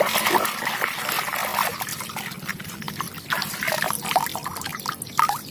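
Water splashing and trickling with small gurgles as a dirty toy vehicle is washed.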